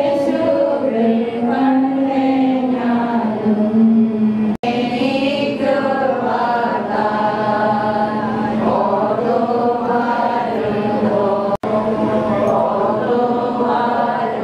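Voices chanting a slow hymn, the sung line rising and falling over a steady held low note. It drops out for an instant twice.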